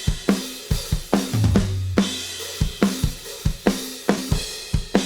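Recorded drum kit playing a steady groove of kick, snare, hi-hats and cymbals, played back through a Z&H Designs 1178 stereo compressor/limiter.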